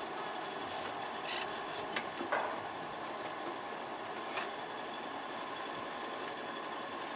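A steady hum and hiss of background noise, broken by a few light knocks and clicks, the clearest about two seconds in and near the middle.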